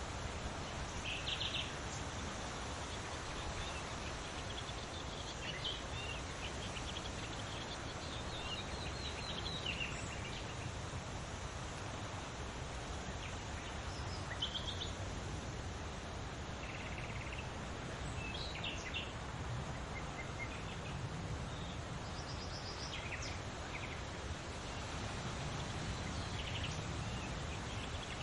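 Leaves rustling in the wind as a steady rush, with birds chirping and singing short phrases every few seconds over it.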